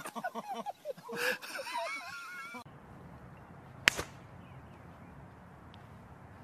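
Voices for the first two and a half seconds, then one sharp crack about four seconds in, a golf club striking a ball off a tee.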